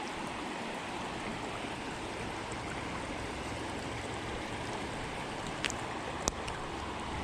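Shallow creek water running steadily over rocks, with two small clicks close together near the end.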